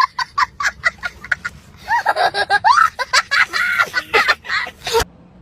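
A man laughing in quick, high-pitched bursts, then breaking into longer giggles and chuckles; it cuts off suddenly near the end.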